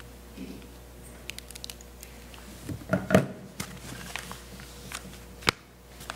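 Paper handling at a pulpit microphone: sheets of sermon notes rustled and turned, with scattered small clicks and knocks, a louder cluster about three seconds in and a sharp click about five and a half seconds in, over a faint steady hum.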